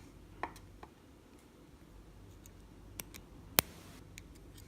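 A few small, sharp clicks and ticks of tiny metal lock parts being handled while the fourth pin is fitted into a padlock's pin stack during reassembly, the loudest click about three and a half seconds in.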